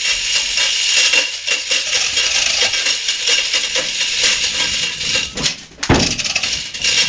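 Hand chain hoists clattering: fast, dense rattling and clicking of the chains while a boat hull hanging from them is turned, in sped-up audio. A single dull thump comes about six seconds in.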